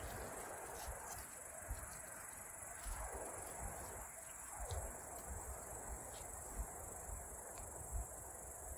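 Faint, steady high-pitched chirring of insects, with soft irregular low rumbles underneath.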